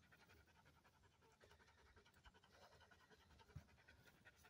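Faint, quick, steady panting of an English Shepherd dog.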